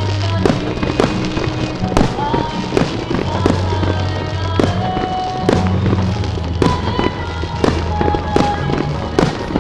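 Aerial fireworks shells bursting in quick succession, sharp bangs coming about one to two a second.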